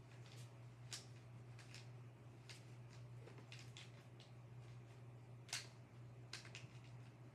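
Faint, irregular plastic clicks of a twisty puzzle cube being turned by hand, a few a second, the sharpest about five and a half seconds in, over a steady low hum.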